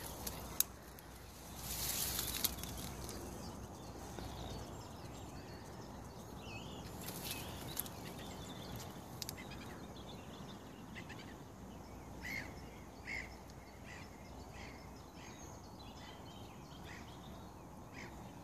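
Outdoor ambience: a steady low background rumble, a brief hissing burst about two seconds in, and short, repeated bird chirps through the second half.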